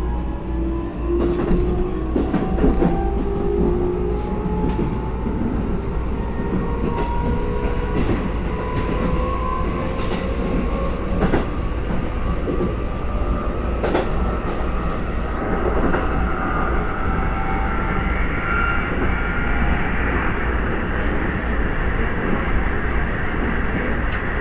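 Keikyu electric train's traction motors and inverter whining as it accelerates, several tones rising steadily in pitch together. The title calls it an odd-sounding car. Under the whine is a steady running rumble with scattered clicks of the wheels over rail joints.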